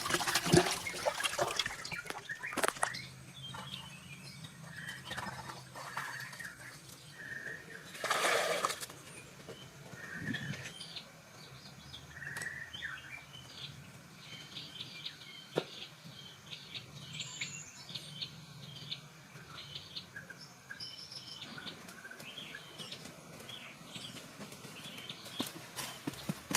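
Birds chirping in short calls, with a few sharp knocks and a brief loud scraping rush about eight seconds in.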